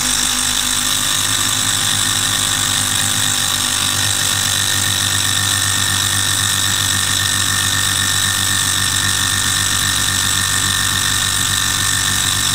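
Small Stirling engine model, heated by its spirit lamp, running steadily at speed: a continuous fast mechanical whir from its piston, crank linkage and spinning flywheel.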